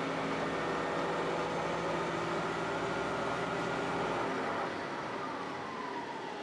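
Aizu Railway diesel railcar heard from inside, its engine running steadily under the rumble of the wheels; about four and a half seconds in the engine eases off, the sound drops a little, and a whine falls in pitch.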